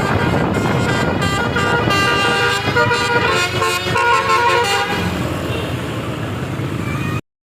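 A bus's 18-note basuri telolet air horn playing a quick melody of stepping notes over engine and road noise. The notes die away after about five seconds, and the sound cuts off abruptly near the end.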